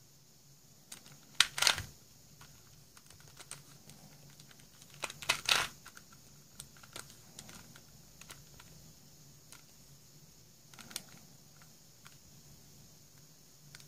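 Plastic twisty puzzle being turned by hand: scattered clicks of its pieces sliding, with louder quick clattering flurries of turns about a second and a half in, around five and a half seconds, and again near eleven seconds.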